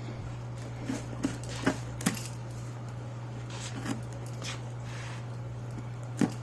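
A handful of short, sharp clicks and knocks, scattered irregularly, from a box and its packaging being handled and opened, over a steady low hum.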